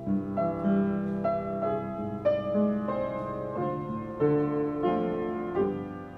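Piano playing the introduction to a song: a melody of single struck notes over held chords, with no singing yet.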